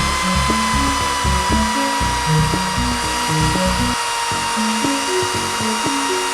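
Electric drill running steadily with a high whine as a 1-inch Forstner bit bores the shaft hole into a maple cane handle, over background music.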